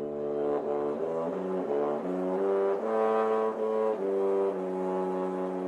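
Brass music: a short tune of notes changing about every half second, ending on a long held note.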